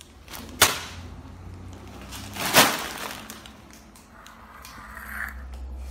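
Crinkly plastic snack bags rustling and crackling as they are handled, with two sharp crackles, one about half a second in and a louder one about two and a half seconds in.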